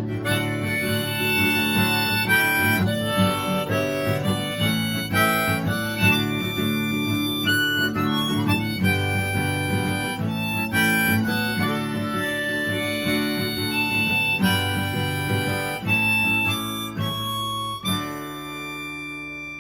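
Harmonica playing a melody over strummed acoustic guitar in a song's instrumental outro, ending on a final chord that rings out and fades near the end.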